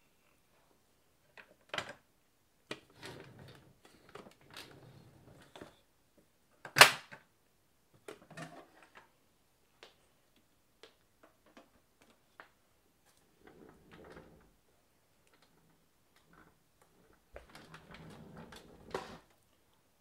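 Hard plastic tank parts of a VAX 121 carpet-washing vacuum cleaner being handled and fitted together, with the machine not running: scattered clicks and knocks. The loudest is a sharp snap about seven seconds in, and there is a short clatter near the end.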